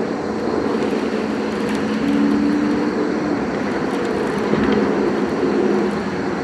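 A steady motor drone with a low, even hum; a slightly higher tone joins for a second or so in the middle.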